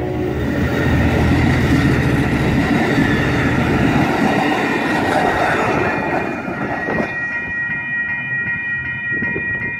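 Amtrak California bilevel passenger cars rolling past close by, wheels rumbling and clattering on the rails. From about seven seconds in, as the train moves away, a grade-crossing bell rings with even, repeated strokes.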